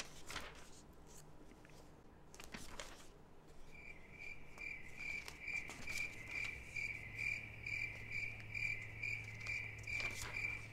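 Glossy magazine pages being turned by hand, then a high-pitched chirp repeating about twice a second, with a low steady hum joining about halfway through.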